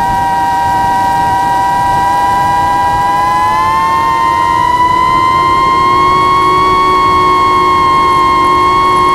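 FPV quadcopter's motors and propellers whining in a steady, high pitch. The pitch rises a little about four seconds in and then holds.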